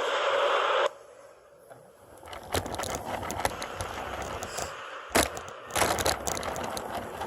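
A steady whooshing noise that cuts off suddenly about a second in, followed after a short quiet by scattered clicks, scrapes and knocks of a plastic Lego airplane being handled, with a sharp knock about five seconds in.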